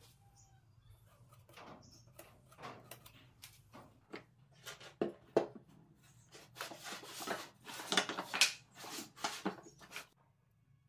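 Plywood router-jig rails and sliders being handled on a workbench: irregular knocks, clacks and scraping, busiest and loudest in the second half, cutting off abruptly shortly before the end.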